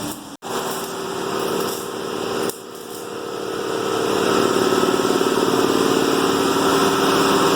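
The 1963 Oldsmobile F-85's engine running steadily, growing louder about three to four seconds in and then holding.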